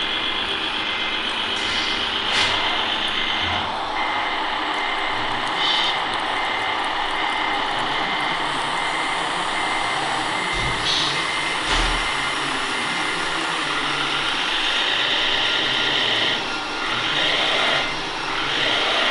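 Radio-controlled MAN tipper truck and trailer: the steady engine drone from its sound module, with a repeating high beep. From about halfway through, a higher whine joins as the hydraulics tip both bodies to the side. A few short knocks are heard.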